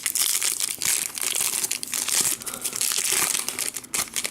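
Foil wrapper of a trading-card pack crinkling continuously as it is handled and opened, with a brief lull just before the end.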